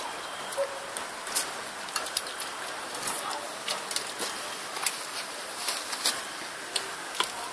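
German Shepherd chewing grapes, an irregular series of short wet clicks and smacks from its mouth.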